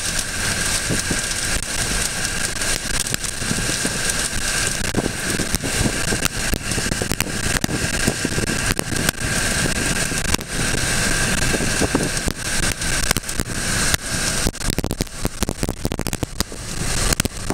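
Thunderstorm wind and rain noise near a tornado: a steady rush with frequent crackling pops, which grow denser near the end.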